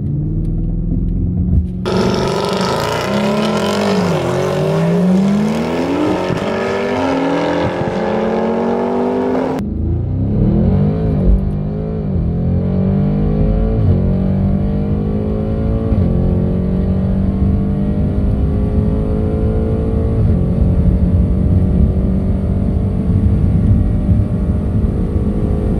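Audi RS6's twin-turbo V8 heard from inside the cabin: held at steady revs for about two seconds, then launched at full throttle in a drag run. The engine note climbs and drops again at each upshift, with the climbs growing longer in the higher gears.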